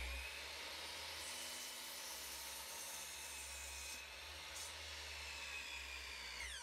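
Electric miter saw running with its blade cutting through a 2x4 wood stud. Near the end the saw is switched off and the motor winds down with a falling whine.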